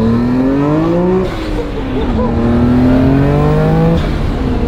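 Nissan Skyline R33 GT-R's twin-turbo RB26 straight-six pulling hard under full throttle. The revs climb, fall at an upshift about a second in, climb again and fall at a second shift near the end.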